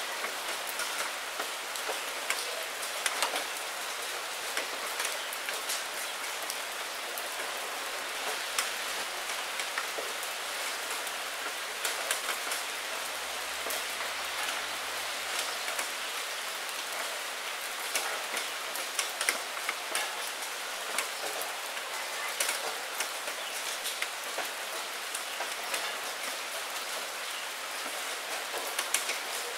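Steady rain on a glass window: an even hiss of falling rain with many small, sharp drop ticks scattered throughout.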